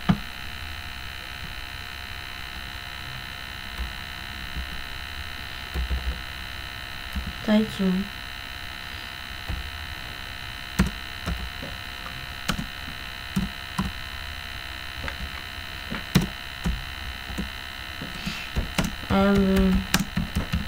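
Steady electrical mains hum with a constant high whine in the recording. Sparse, irregular keyboard clicks run through it as a few characters are typed. A short voiced murmur comes about eight seconds in and again near the end.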